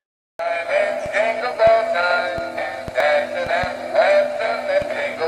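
Singing Santa Claus plush toy playing a Christmas song: a male voice singing over a steady beat, starting about half a second in.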